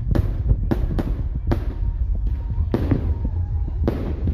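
Fireworks bursting: about seven sharp bangs at irregular intervals, some close together, over a steady low rumble.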